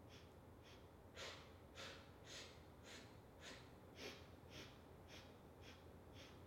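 A woman's faint, short, sharp breaths, about two a second and evenly spaced, paced with small pulses of her arms during a prone Pilates exercise. The breaths grow a little stronger about a second in.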